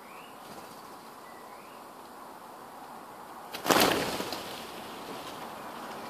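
A flock of starlings taking off together in a sudden burst of wingbeats about three and a half seconds in, with a smaller flutter just after. Earlier, two short rising chirps.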